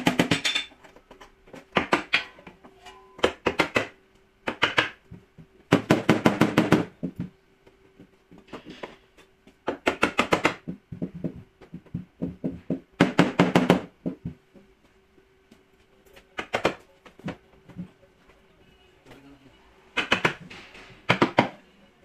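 Body hammer tapping out the dented sheet-metal rear quarter panel of a Ford Taurus: about ten short runs of quick, light taps, some lasting about a second, with brief pauses between them.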